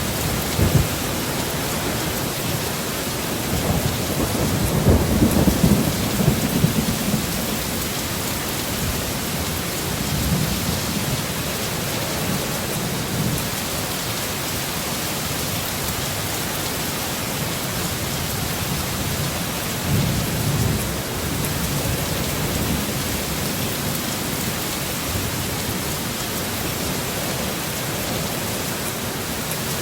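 Heavy rain falling steadily, with low rolls of thunder swelling up about four to seven seconds in, and again more softly around ten and twenty seconds in.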